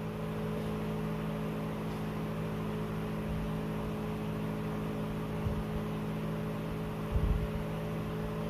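Steady machine hum, made up of several held tones. There is a soft low knock about five seconds in and another near seven seconds.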